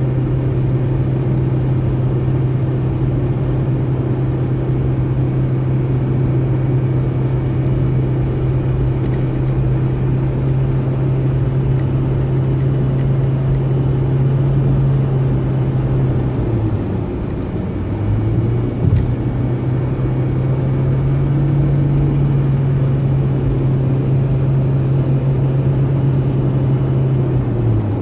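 A car cruising at freeway speed: a steady low engine hum over constant tyre and road rumble. The engine note drops and comes back up once about two-thirds of the way through, and drops again near the end.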